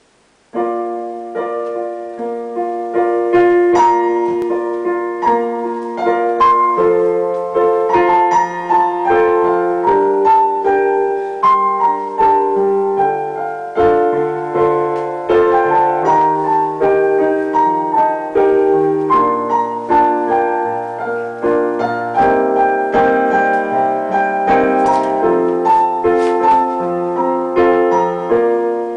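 Piano or electric piano playing an instrumental introduction, chords and a melody with a moving bass line, starting about half a second in.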